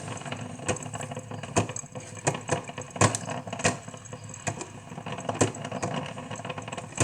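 Cuisinart drip coffee maker sputtering near the end of its brew as the water reservoir runs low, with irregular sharp pops over a faint steady hum.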